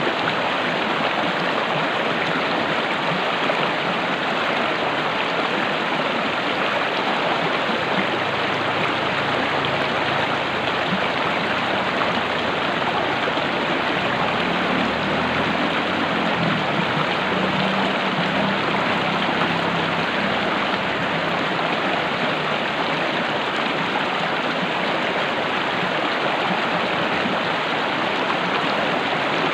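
Stream water flowing, a steady rushing with no breaks.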